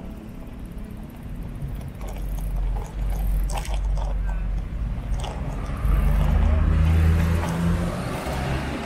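Wind rumbling on the microphone of a camera riding on a bicycle, with car traffic running alongside in the next lane. It gets louder for a second or so about six seconds in.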